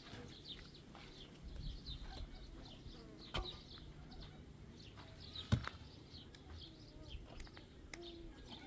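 Small birds chirping over and over in short high notes, with two sharp knocks, about three and a half and five and a half seconds in.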